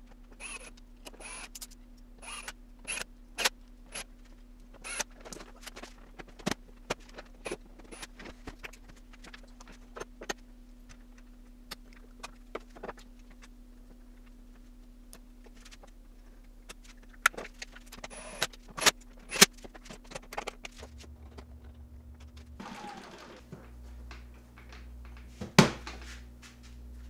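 Clicks, taps and small rattles of a portable inverter generator's plastic side panels and screws being handled and refitted, in scattered clusters, with one sharp knock near the end.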